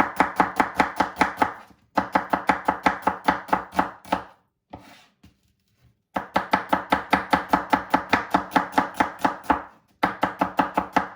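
Knife rapidly chopping onion on a cutting board, about six quick strokes a second, in three runs with a short break about two seconds in and a longer pause around the middle.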